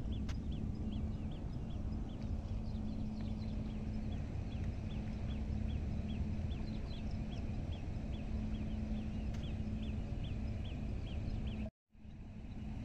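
A short chirping animal call repeated about twice a second over a steady low rumble and hum; the sound cuts out briefly near the end.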